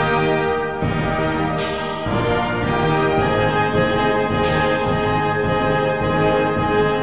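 Orchestral background music led by brass: sustained chords that shift every second or two.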